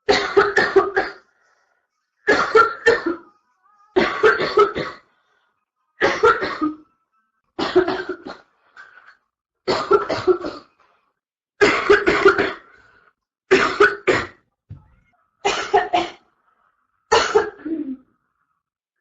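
A girl coughing in about ten bouts of three or four rapid coughs each, one bout every couple of seconds, from a chest cold in its early stages.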